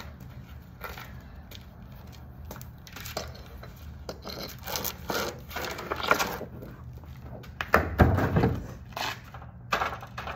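Irregular knocks, scrapes and cracking from a partly smashed flat-screen TV and its broken pieces being handled and struck, with one heavier impact about eight seconds in.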